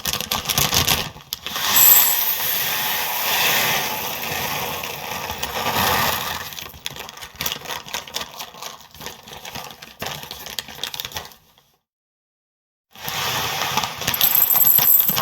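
Dry breakfast cereal being poured: a dense clatter of many small pieces falling and rattling, thinning out after the first several seconds. It stops for about a second near the end, then a second pour starts.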